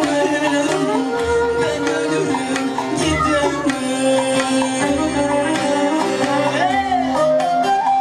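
Live Turkish folk music: a woman singing with ornamented, wavering pitch over plucked bağlama (saz) and a hand drum beating deep strokes about every two seconds.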